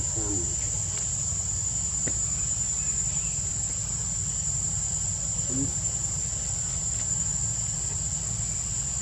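Steady, unbroken high-pitched drone of insects, with faint distant human voices briefly near the start and about five and a half seconds in.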